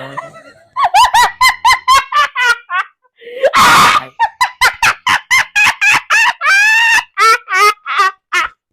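A person laughing hard in quick, high-pitched bursts, with a brief breathy shriek about three and a half seconds in.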